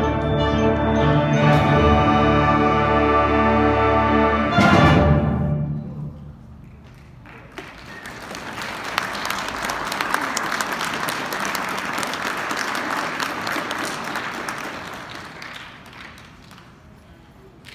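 A high school concert band holds a final chord for about five seconds and cuts off with a loud accented hit, the sound ringing away in the hall. The audience then applauds for several seconds, the clapping dying out near the end.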